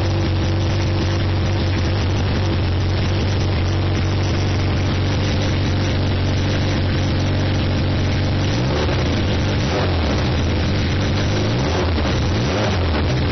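Kawasaki ZRX1100's inline-four engine running with the exhaust silencer removed, idling steadily at first, then revved up and down a few times over the last five seconds.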